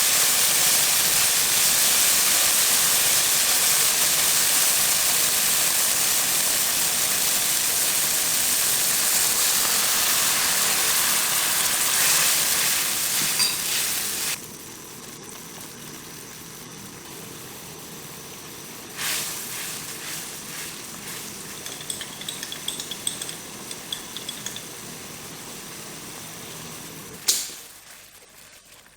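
A tofu and egg omelet sizzling in a hot frying pan. The loud sizzle drops abruptly to a much quieter sizzle about halfway through, with a few light clinks after it and a sharp tap near the end.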